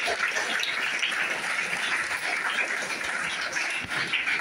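An audience of schoolchildren and adults applauding: dense, steady clapping that eases slightly toward the end.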